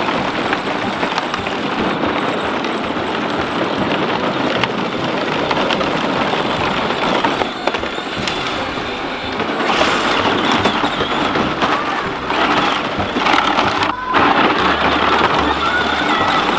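John Deere battery-powered ride-on toy tractors driving, with a steady rumble of hard plastic wheels rolling over gravel and concrete.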